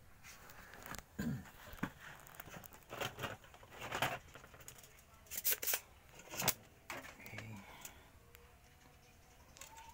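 Hand tools and a circuit board being handled while a small IC is worked off the board: irregular clicks, scrapes and rustling, with a few sharper knocks between about five and six and a half seconds in.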